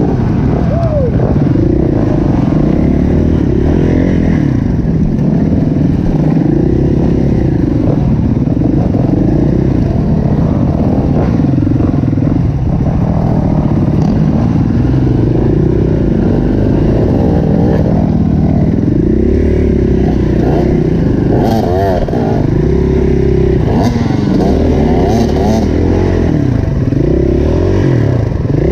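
KTM EXC-F four-stroke dirt bike engine revving up and down over and over, its pitch rising and falling about every two seconds as it is ridden through deep mud ruts, with some clatter and knocks.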